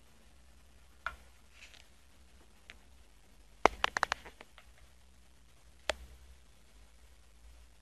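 Sharp clicks and taps on a hardwood floor from a small crocodile moving and lunging, most likely its claws and body scrabbling on the boards. There is a single tap about a second in, a quick run of loud clicks a little before halfway, and one more tap near the end.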